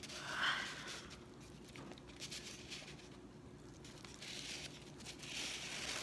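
A person's breathy yawn, with light crinkling of a paper-plate craft being handled; a second breathy stretch comes near the end.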